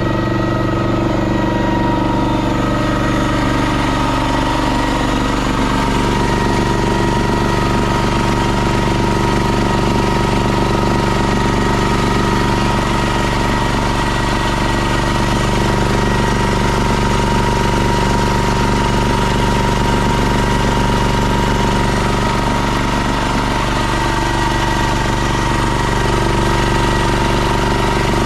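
Honda GX390 single-cylinder engine on a John Deere 60 skid steer running steadily.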